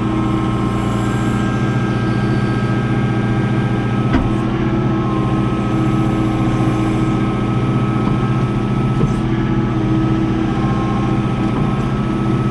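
John Deere 4066 compact tractor's diesel engine running steadily under work, with a single sharp knock about four seconds in.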